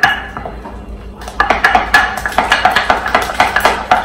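Wooden spatula stirring waffle batter in a glass mixing bowl, knocking and scraping against the glass. After a few clinks the strokes speed up about a second in to a fast, even rhythm of several knocks a second.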